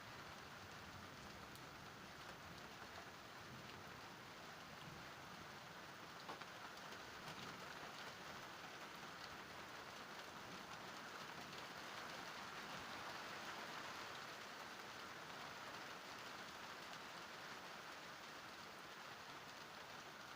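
Steady rain falling and pattering on surfaces during a thunderstorm, an even hiss that swells slightly toward the middle.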